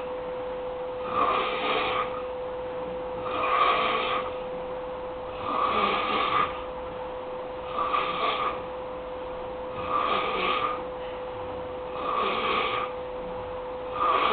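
Snoring in a slow, even rhythm, one snore about every two seconds. A steady hum runs underneath.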